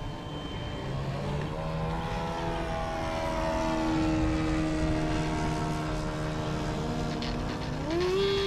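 Electric motor and propeller of a Great Planes Cherokee 46 RC model plane on its takeoff run: a whine that starts about a second in, creeps up in pitch, then climbs sharply near the end as the throttle opens.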